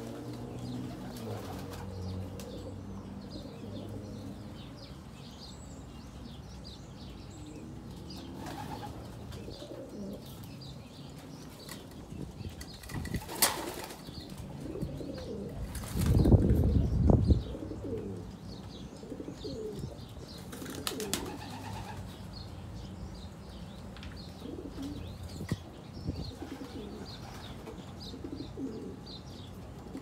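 Racing pigeons cooing in a loft and flapping their wings, with one loud flurry of flapping about halfway through.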